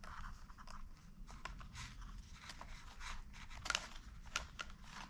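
Foam wing of a model plane being handled and pushed against its fuselage and wing spar: faint crackling and creaking foam with small clicks, and two sharper clicks in the second half.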